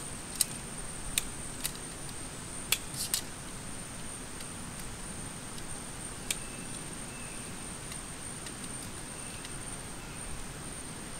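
Sharp clicks and snaps of a folding knife cutting into a thin green plant stem: a quick cluster in the first three seconds and one more about six seconds in. Underneath is a steady hiss with a constant high-pitched whine.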